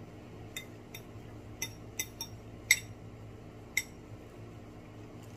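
Cutlery clinking against dishware: about seven light, ringing clinks at irregular spacing over the first four seconds, the loudest a little under three seconds in.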